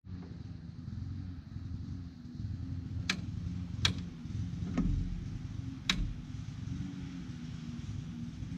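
A low, pulsing mechanical rumble from the stationary gas-turbine-powered street rail, with four sharp clicks between about three and six seconds in.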